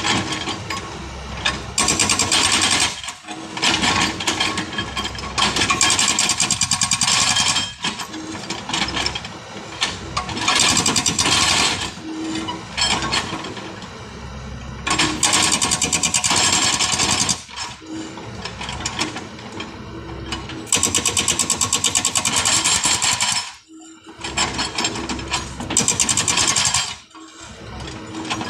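Hydraulic breaker on a backhoe excavator hammering hard adobe rock in bursts of one to three seconds, fast and evenly repeated, with the machine's engine and hydraulics running between the bursts.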